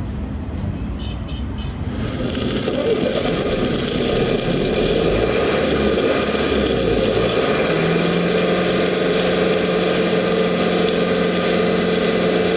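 Stick welding: the arc of a flux-coated electrode strikes about two seconds in and then crackles and sizzles steadily as it lays a bead on a joint in thin steel square tubing, with a steady low hum joining partway through.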